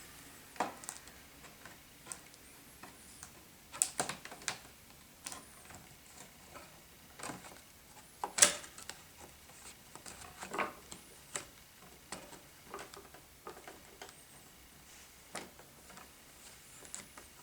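Irregular light clicks and taps from handling a laptop's replacement LCD panel and its plastic lid parts, with a sharper click about 4 s in and the loudest just past the middle.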